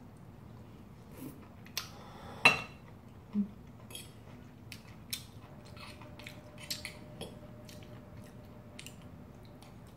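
Fork and chopsticks clinking and scraping against a ceramic plate while twirling spaghetti: a scatter of sharp clicks, the loudest about two and a half seconds in, with soft chewing between them.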